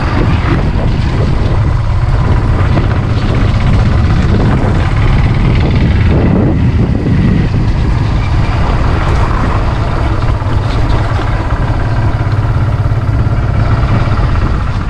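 Motorcycle engine running steadily while riding, with a heavy low rumble of wind on the microphone.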